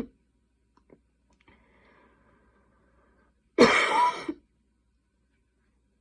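A girl coughing during a coughing fit: the tail of one cough right at the start, a faint breath, then one loud harsh cough a little past halfway that ends in a short second hack.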